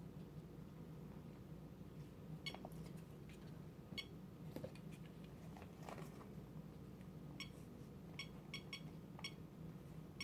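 Short, faint electronic beeps from a SimpliSafe keypad as its keys are pressed: a few single pips, then several in quick succession in the second half, over a low steady hum.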